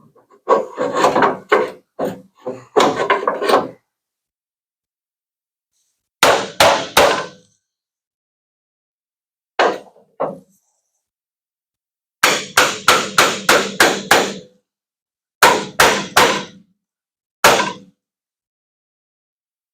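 Metal hammer blows on the sheet-metal bed panel of a Ford F-350 Super Duty, in bursts of quick strikes, each with a short metallic ring, as a dent is worked out. The longest run is about eight fast blows, midway through.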